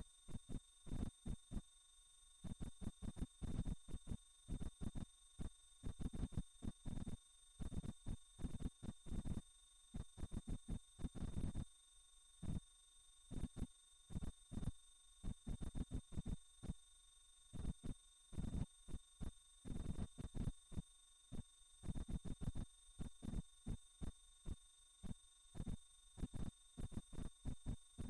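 Electronically generated pure sine tone, very high-pitched, held steady and pulsing rapidly and evenly in loudness, with a faint low rumble coming and going beneath.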